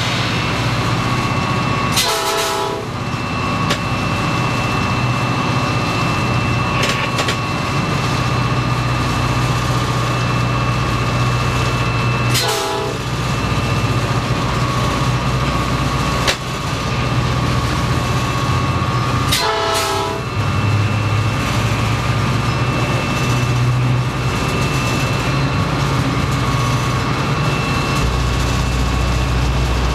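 Inside a diesel locomotive cab on the move: the engine and running gear make a steady low rumble, broken by three short horn blasts spread through the stretch.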